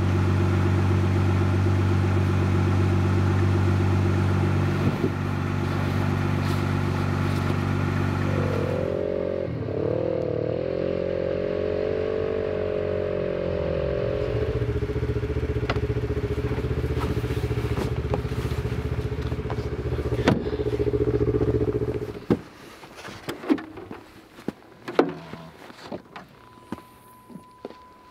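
Vehicle engines running: a steady idle for about nine seconds, then an engine whose pitch wavers and climbs as it revs, running on steadily until it cuts off suddenly about 22 seconds in. After that, scattered clatter and knocks of gear being handled.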